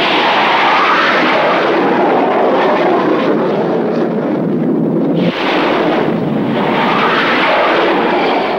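Loud, steady jet noise of A-5 Vigilante jets' twin General Electric J79 afterburning turbojets at full power for a carrier catapult launch. It drops briefly about five seconds in, then comes back just as loud.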